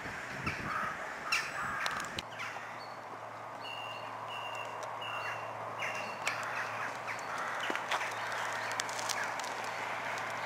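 Fading rail noise of a First Great Western HST for the first two seconds. Then quiet trackside ambience with a steady low hum and a bird giving about four short, evenly spaced high calls.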